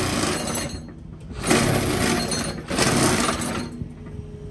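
Excavator-mounted hydraulic vibratory attachment rattling hard on top of a wooden dock piling, driving it into the bottom. It runs in three bursts of about a second each with short pauses between them, then stops near the end, leaving the excavator engine humming steadily.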